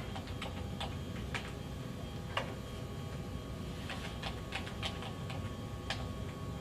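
Computer keyboard keys tapped in short irregular runs of clicks as a root password is typed, Enter is pressed, and the password is typed again, over a steady low hum.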